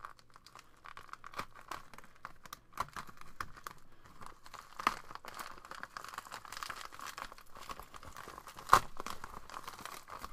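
Plastic bubble mailer being slit with a utility knife and torn open by hand: continuous crinkling and tearing of the plastic film, with many small crackles and a sharp crack a little under nine seconds in.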